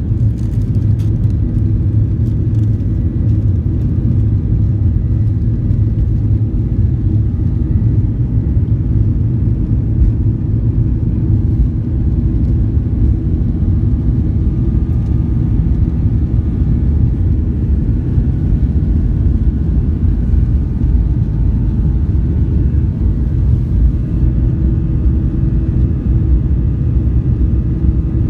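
Jet airliner rolling on the runway, heard from inside the cabin beside the wing: a steady, loud low rumble of the turbofan engines and wheels, with a faint engine whine above it.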